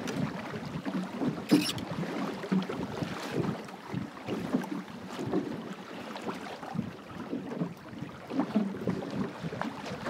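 Water rushing and slapping along the hull of a plywood Goat Island Skiff sailing fast in a good breeze, with wind buffeting the microphone. One louder splash comes about one and a half seconds in.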